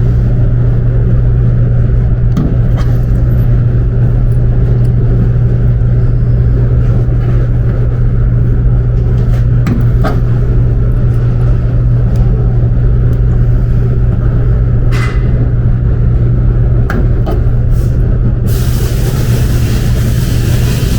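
Loud, steady low mechanical hum with a few sharp clicks and knocks; a loud hiss starts near the end.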